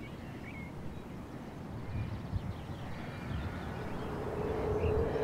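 Quiet outdoor nature ambience: a low rumble with a few faint high chirps. A sustained low musical note fades in near the end as the soundtrack music starts.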